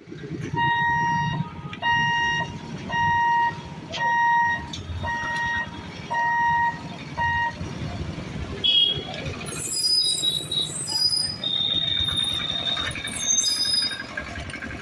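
Repeated electronic warning beep, one pitched tone about once a second, sounding seven times and then stopping, over steady road-traffic rumble and voices at a level crossing. After it stops, high shrill tones come and go over the same traffic noise.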